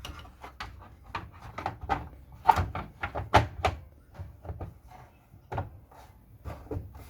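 Irregular clicks and knocks of a Samsung front-loading washing machine's front panel being handled and fitted back into place, the loudest a few seconds in.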